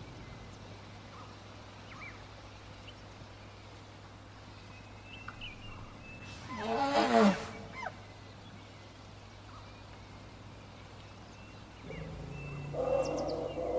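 African elephant giving one loud call about halfway through, rising in pitch and lasting about a second, over a low steady hum with faint bird chirps. Near the end a sustained sound with steady pitches begins.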